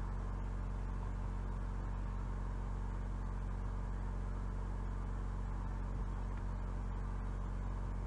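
Steady low hum with a faint hiss and no events: the recording's background noise during a pause in speech.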